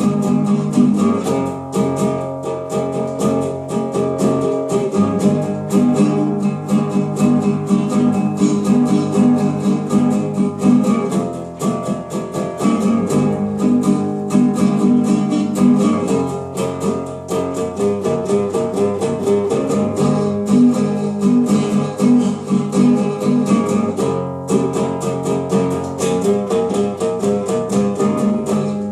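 Small acoustic guitar played continuously, quick plucked and strummed notes.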